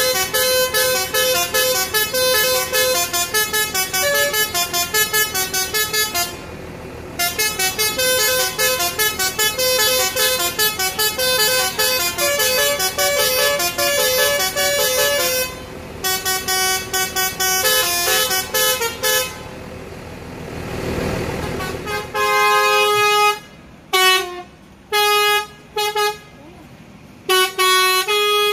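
A tour bus's Basuri V3 musical horn playing a fast tune of short tooting notes, with two brief breaks. About twenty seconds in it gives way to a short rushing hiss, then the horn sounds again in separate short blasts with quiet gaps between them.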